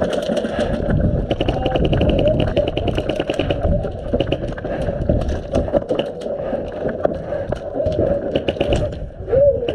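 Airsoft gun firing a rapid full-auto burst, about nine shots a second for a little over two seconds starting about a second in, among scattered clicks and knocks.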